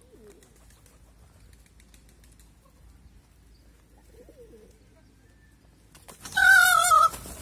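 Faint cooing of feral pigeons, then about six seconds in a loud, wavering call of about a second from an Indian peacock.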